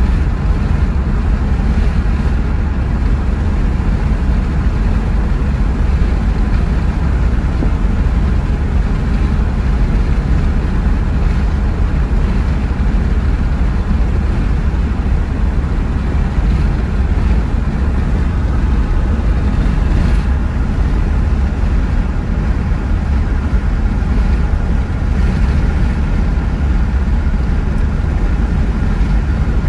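Steady road and engine rumble inside a moving car's cabin, heaviest in the low end, with no distinct events.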